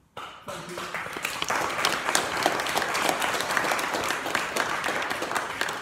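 Congregation applauding. It starts suddenly and dies away near the end.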